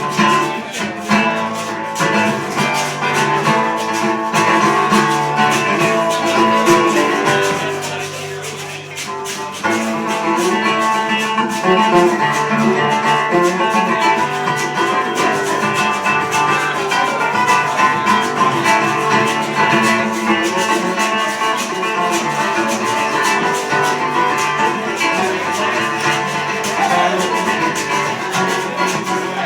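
Acoustic guitar strumming an instrumental passage of a song, dipping briefly about eight seconds in before picking up again.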